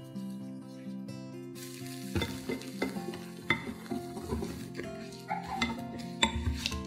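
Wire balloon whisk stirring a thick chocolate mixture in a glass bowl, its wires scraping and clicking against the glass in quick, uneven strokes from about two seconds in.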